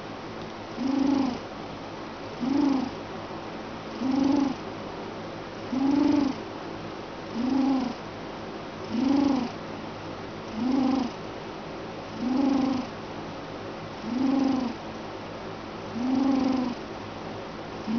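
Steady, rhythmic snoring: a short pitched snore about every second and a half to two seconds, around ten in a row, with a faint steady hiss between them.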